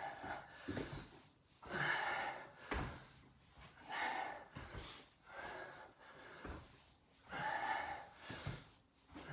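A man breathing hard under exertion during squat-kick exercise, short puffs of breath coming about once a second, with a few soft footfalls on a rubber gym floor between them.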